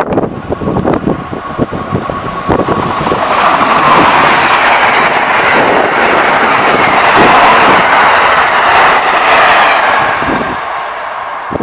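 Amtrak electric-hauled passenger train passing at speed: a rushing roar of wheels on rail and moving air that builds up, holds loud for several seconds and then fades near the end. Wind gusts buffet the microphone at the start.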